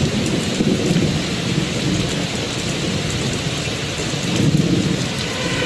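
Steady rain with low rolling thunder.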